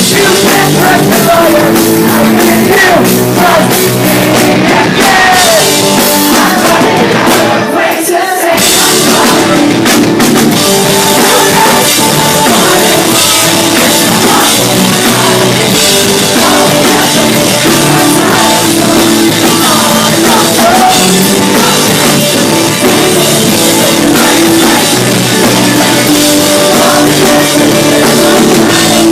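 Rock band playing loud, with singing and drums, and a short break in the bass about eight seconds in.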